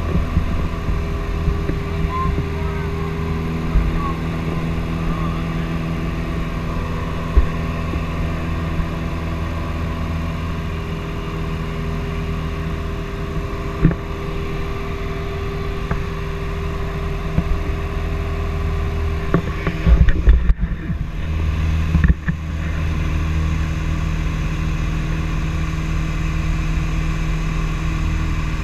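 Light airplane's piston engine and propeller droning steadily, heard inside the cabin, with a few brief knocks. About two-thirds of the way through the sound briefly drops out and jumps, then the drone carries on.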